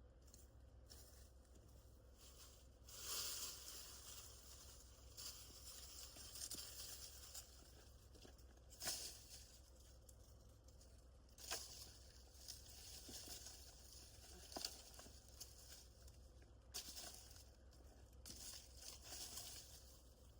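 Faint rustling and crackling of branches and sticks being handled and laid into a dirt driveway rut, with a few sharp snaps.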